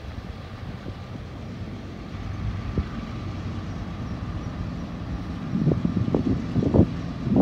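Diesel locomotives of a Norfolk Southern freight train approaching with a steady low rumble, under wind buffeting the phone's microphone. The gusts grow stronger in the last couple of seconds.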